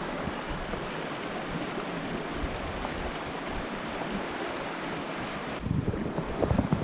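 Outdoor wind noise: a steady rush, with gusts buffeting the microphone in low, uneven thumps from about five and a half seconds in.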